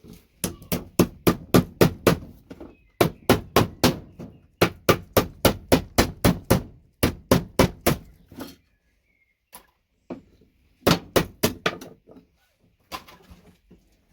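Hammer striking a tool wedged under VGA connectors on a scrap circuit board to knock the connectors off. The blows come about four a second in several bursts with short pauses, thinning to a few single blows near the end.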